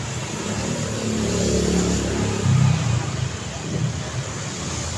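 Road traffic noise, with one motor vehicle passing close: its engine note swells from about a second in and is loudest around two and a half seconds in.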